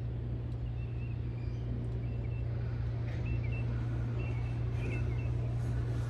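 Pressure washer engine running with a steady hum under the hiss of the spray, while birds chirp briefly several times.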